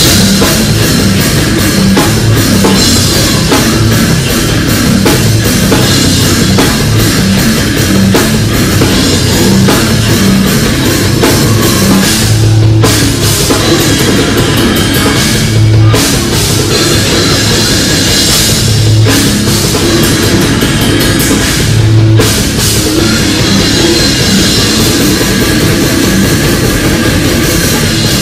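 Live metal band playing loud: guitars, bass and dense, fast drumming on a drum kit. In the second half the music stops short several times, about three seconds apart, each break answered by heavy low accents.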